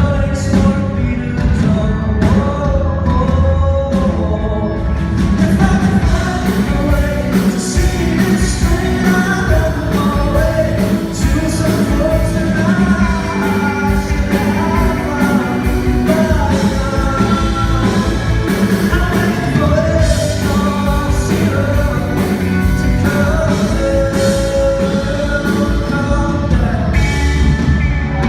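Live rock performance: a male lead vocal singing a melody over a full band with a steady beat.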